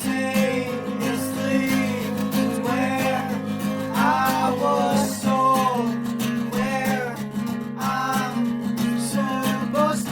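Song with strummed acoustic guitar chords and a wavering melody line over them.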